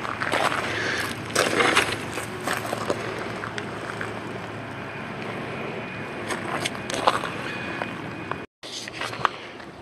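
Footsteps crunching on gravel and grass, a few uneven steps in the first seconds, then a steady outdoor background noise. The sound drops out completely for a moment near the end.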